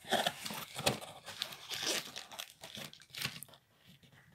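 Cardboard shipping box and plastic wrapping being ripped and crinkled as the phone box is pulled out, a quick run of tearing and rustling that dies down about three and a half seconds in.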